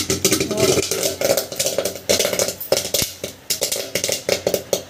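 Popcorn kernels popping inside a steel kadai covered with a steel plate: many sharp pops in quick, irregular succession.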